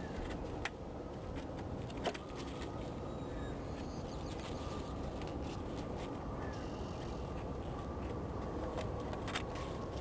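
A few sharp wooden clicks as Warré hive top bars are handled and set onto the wooden hive box: one under a second in, a louder one at about two seconds, and another near the end. A steady low background rumble runs underneath.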